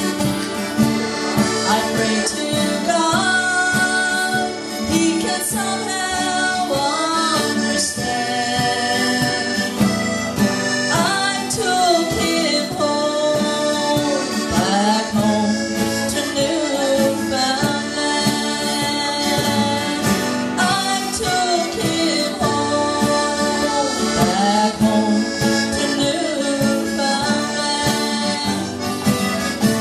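Live folk band music led by an accordion melody, with a strummed 12-string acoustic guitar and a cajón keeping the beat.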